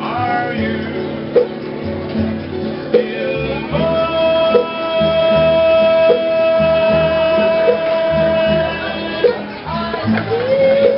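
Background music: a song with plucked guitar and singing, with a long held note through the middle and another, wavering note near the end.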